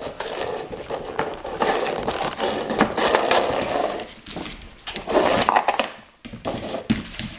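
Plastic ball toy scraping, rattling and knocking across a hard floor as a puppy paws and noses it along. The noise drops off about four seconds in, comes back briefly, and then dies away near the end.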